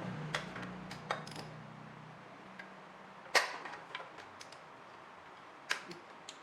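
Irregular metallic clicks and knocks of tools and parts being handled during motorcycle engine work, the loudest about three and a half seconds in and another near the end. A low hum fades out in the first two seconds.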